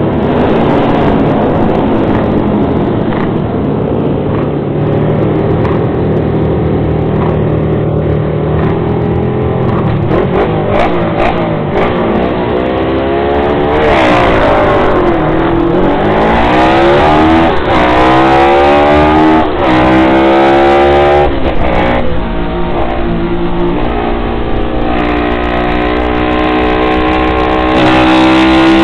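Onboard engine sound of a Honda CB350-engined Drixton 350 MkII vintage race motorcycle. It runs at steady revs on the starting grid with the field's engines around it, then launches and accelerates hard. The revs climb in several rising sweeps, each cut by an upshift, and are held high near the end.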